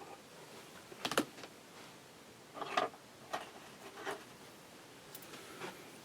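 Scattered light clicks and taps, about six spread irregularly over a few seconds, from handling fabric and parts at a Singer 201K sewing machine. The machine is not running.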